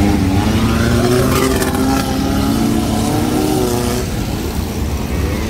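Off-road jeep engines revving as the jeeps drive through a shallow river crossing, with water splashing under the wheels. The pitched engine note eases after about four seconds, leaving a steady low rumble.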